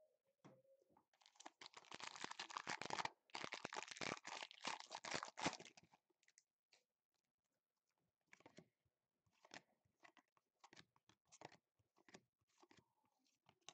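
Foil trading-card pack wrapper being torn open and crinkled for about four seconds, then quieter scattered rustles and clicks as the cards are handled.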